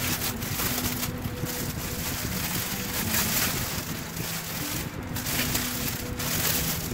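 Clear plastic packaging crinkling and rustling as it is handled and opened, in a continuous flickering rustle.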